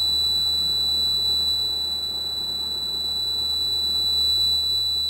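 A 9V piezo buzzer of a laser-beam security alarm sounding one steady, high-pitched continuous tone, with a low hum beneath it.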